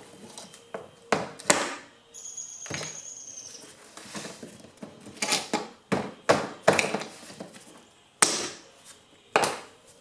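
Sharp knocks and clicks of PVC garage door weather strips and aluminum nails being handled and set down, with a thin high squeak lasting about a second and a half, starting about two seconds in.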